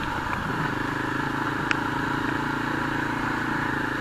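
Yezdi Adventure's single-cylinder engine running steadily at low trail speed, heard close up from the handlebars, with one brief click a little before halfway.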